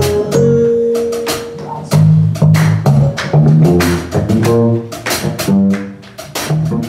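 Instrumental worship music with sustained low and middle notes, and hands clapping along in sharp, irregular claps.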